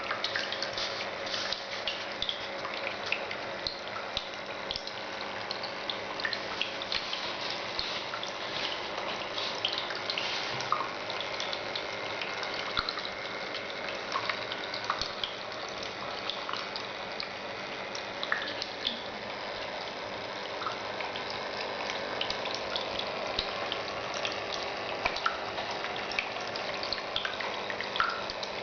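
Tabletop waterfall fountain running: a steady splash of falling water with many small irregular drips and plinks.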